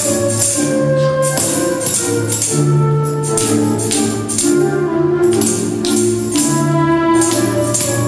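Tambourines struck and shaken in time by a group of children, their jingles ringing roughly once a second over an instrumental tune of sustained notes.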